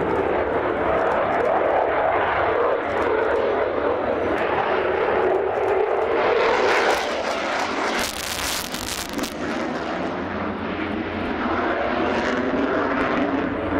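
Eurofighter Typhoon's two Eurojet EJ200 afterburning turbofans roaring in a fast display pass. The roar is steady, with a brief harsh rush of noise about eight seconds in.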